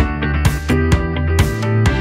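Background music: a pitched instrumental track with recurring percussive hits.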